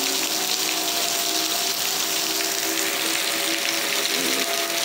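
Heavy rain pouring down in a steady, even hiss. Underneath it, the faint steady tones of tornado warning sirens.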